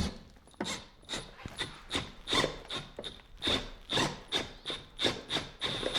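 Styrofoam squeaking under a run of short, even rubbing strokes, about three a second, each with a thin squeal.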